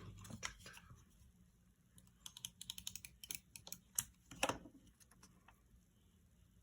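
Light clicks and taps of small objects handled on a desk, with a quick run of them about two seconds in and two louder taps around four seconds.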